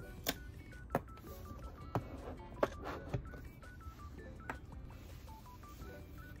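Background music with a simple melody of short high notes stepping up and down, over about six light plastic clicks and knocks from a small plastic drawer unit and figurine being handled, the loudest about two and a half seconds in.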